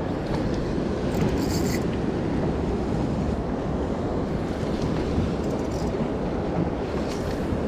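Steady wind rushing over the microphone, with sea waves washing against a small open boat.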